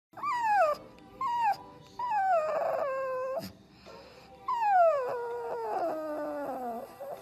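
Pug puppy howling in four drawn-out cries, each falling in pitch, the last and longest sliding steadily down.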